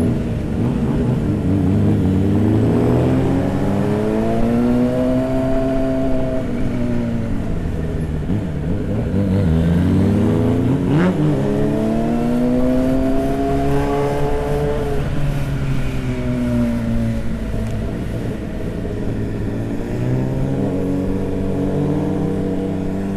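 Motorcycle engine on the move, its pitch rising and falling several times as it accelerates and eases off, over steady wind noise.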